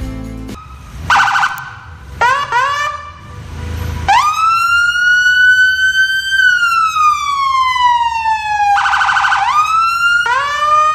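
Police siren sounding. It gives a fast warble about a second in, then a few short rising whoops. A long wail follows, rising for about two seconds and then falling slowly. Near the end another fast warble leads into more rising whoops.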